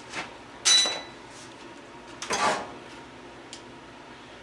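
Metal parts of a gas stove clanking as they are handled during teardown: two knocks, the first with a brief metallic ring.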